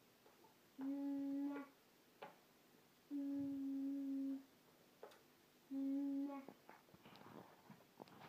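A child humming one steady, unchanging note three times, each hum about a second long with short pauses between; the middle one is the longest.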